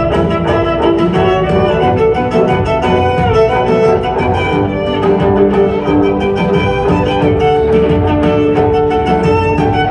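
Violin and cello playing together, with bowed, sustained melodic notes over a lower cello line.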